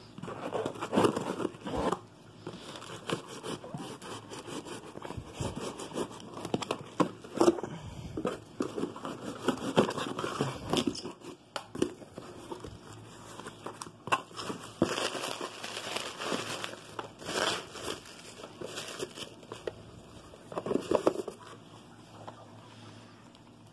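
Cardboard shipping box being opened by hand: flaps pulled apart, tape tearing and plastic packing wrap crinkling, in irregular bursts of rustling and scraping with sharp clicks.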